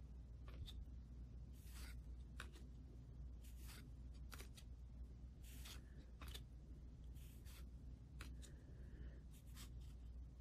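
Faint swishes and soft ticks of hockey trading cards being slid one by one off a hand-held stack, coming about once a second over a low steady hum.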